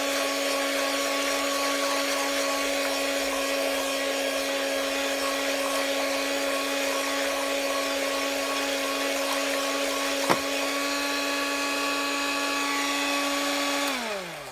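Electric hand mixer running at a steady pitch, its beaters whisking soapy water into foam in a plastic bucket. There is a single sharp knock about ten seconds in. Near the end the motor is switched off and its whine falls away as it winds down.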